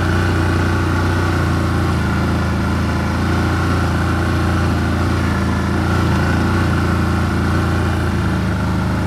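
Car driving at a steady speed: a constant engine hum with road noise, with no revving or change in pitch.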